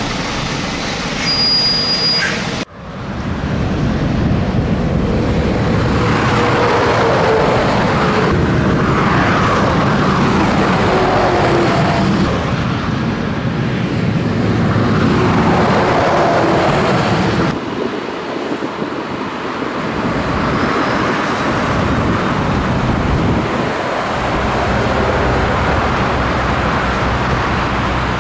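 Road vehicle noise: an engine running with tyre and road rumble, its pitch rising and falling. There is a brief drop-out about three seconds in.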